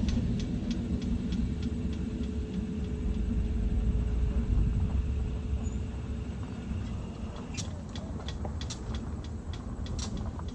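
Low rumble of a freight train that has just passed, running on down the line. Faint regular clicks about three a second sound over it, with a few sharper clicks over the last few seconds.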